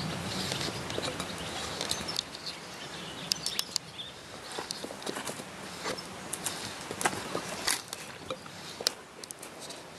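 A Neapolitan mastiff chewing at something in the grass: irregular crunching clicks with soft rustling, busiest in the first couple of seconds.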